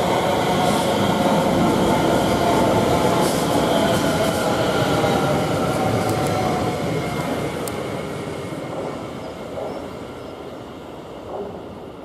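Greater Anglia Class 720 Aventra electric multiple unit running into the station. Its wheels and motors give a loud running noise with a whine that falls slightly in pitch, then fades steadily over the second half as the train slows to a stop.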